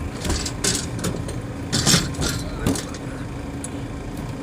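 Several sharp knocks and clanks of equipment being handled during an HVAC installation, over a steady low machine hum.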